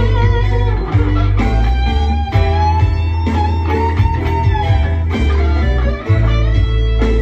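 Les Paul-style electric guitar playing a melodic lead with string bends that rise and fall in pitch. It plays over a backing track with a sustained bass line underneath.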